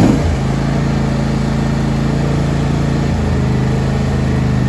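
The 24 hp Briggs & Stratton engine of a new John Deere S170 lawn tractor, started on full choke, catching with a short surge right at the start and then settling into steady running. Its note shifts slightly about three seconds in.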